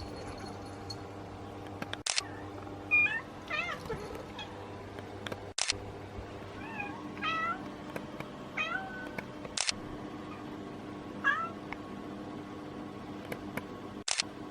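A pet cat meowing in short bouts of brief mews that bend up and down in pitch. Four sharp clicks fall about every four seconds, like a camera shutter.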